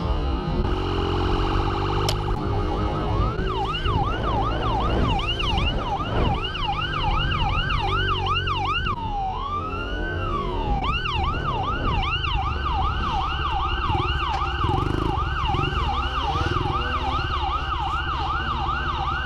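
Police siren on a pursuing patrol SUV. After a few seconds of steady warbling it switches to a rapid yelp of about three rising-and-falling sweeps a second, breaks into one slower wail near the middle, then goes back to the yelp. Underneath runs a steady low rumble of motorcycle engine and wind noise.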